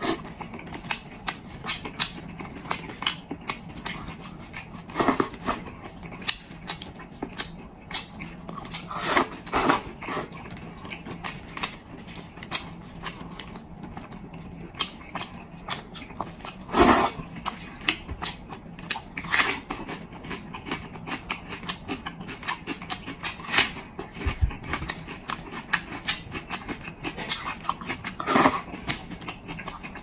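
Close-miked eating sounds: wet chewing, sucking and lip smacks as fatty, gelatinous braised pork hock skin and meat is eaten by hand, a steady patter of small mouth clicks with a louder wet burst every few seconds.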